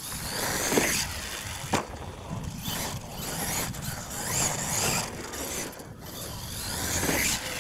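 Solid-axle R/C monster truck driving on loose dirt: its drivetrain whines up and down with the throttle while the tires scrabble and throw dirt. Two sharp clacks come in the first two seconds.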